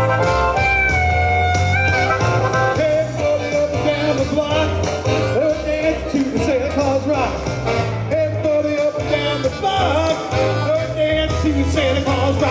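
Live band playing an upbeat rock-and-roll Christmas number with horns. Held notes sound for about the first two seconds, then a wavering melody line bends up and down over a steady bass beat.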